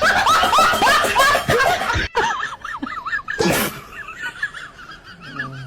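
High-pitched laughter in quick repeated rising-and-falling bursts, loudest in the first two seconds, with a brief sharp noisy burst about halfway through and softer bursts after.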